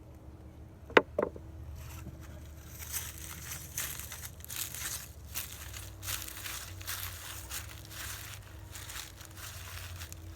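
A single handgun shot, a .32 S&W Long, about a second in: one sharp crack, then a fainter crack a quarter second later. Irregular crunching and rustling follows for several seconds.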